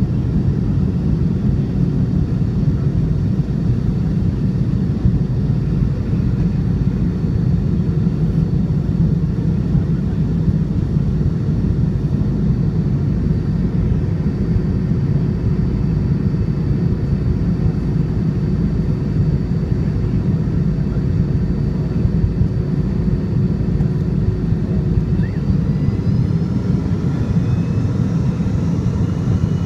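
Steady, loud cabin rumble of a McDonnell Douglas MD-80 on approach, heard from a window seat over the wing, with a faint steady hum above it. Near the end a higher whine from its rear-mounted Pratt & Whitney JT8D engines begins to rise.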